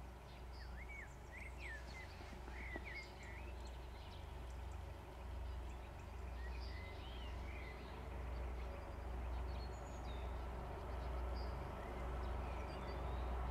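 Low, steady rumble of an approaching diesel locomotive, growing slowly louder, with small birds chirping over it.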